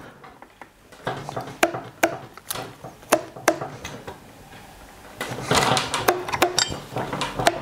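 Irregular clicks and knocks of hand tools and metal parts as the eccentric tensioner of a paramotor's drive belt is loosened and turned. The clicks come thickest for a stretch past the middle.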